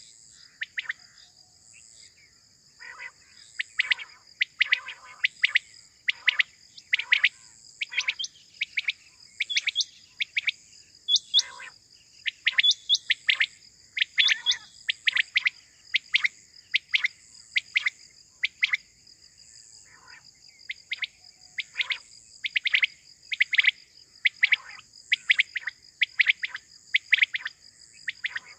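Quails calling over and over: short, sharp chirping calls in quick groups that often overlap, as from several birds at once. A steady high insect trill runs underneath.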